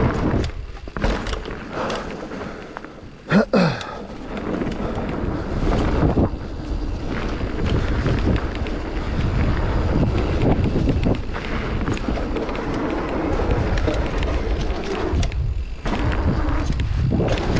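Mountain bike ridden down a muddy trail: steady wind buffeting on the microphone with the bike's rattling and tyre noise over rough ground, and one sharp loud knock about three and a half seconds in.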